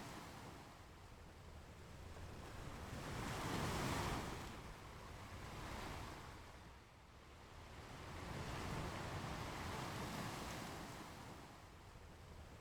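Ocean waves breaking and washing up a beach. The surf swells and ebbs in slow surges, loudest about four seconds in, with quieter swells around nine seconds in.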